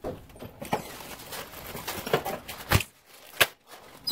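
Plastic zip bag crinkling and rustling close by, with several sharp knocks, the loudest two about 2.7 and 3.4 seconds in.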